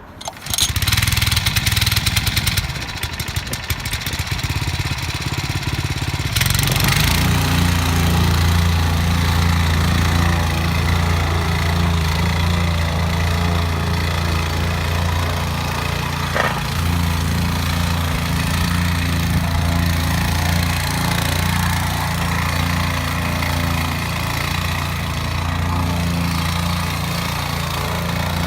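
Meiwa KP30 plate compactor's small Robin EH09 petrol engine starting about half a second in and running unevenly at low speed. About six and a half seconds in the throttle is opened and the machine settles into a loud, steady hum with the plate vibrating at full speed.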